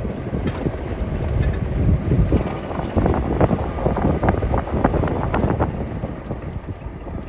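A car driving on an unsealed dirt road: tyres rumbling over the dirt and gravel, with many small knocks and rattles from stones and bumps, easing near the end.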